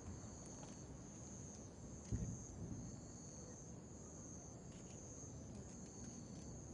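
Crickets trilling faintly and steadily at a high pitch, with a single low thump about two seconds in.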